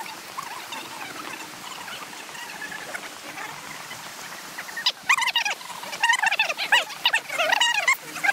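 A busy chorus of chattering animal calls, faint at first and then loud and dense from about five seconds in.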